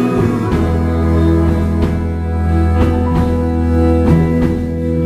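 Live band playing an instrumental passage: electric guitars, bass guitar, violin and drums, with held chords over a deep bass note and drum hits about once a second.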